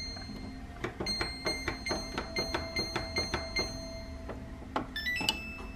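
Samsung front-loading washing machine's control panel beeping and clicking in a quick, even run as its settings buttons are pressed, then a short rising chime about five seconds in as the start button is pressed.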